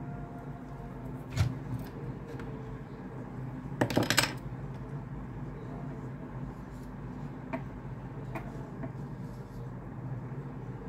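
Small hard objects handled on a tabletop: a light knock about a second and a half in, a brief clattering rattle around four seconds in (the loudest sound), and a couple of faint ticks later, over a steady low hum.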